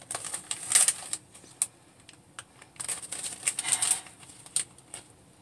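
Small clear plastic bag of loose rose tea crinkling and rustling in short clicky bursts as it is handled and opened, with a sniff at the bag a little over halfway.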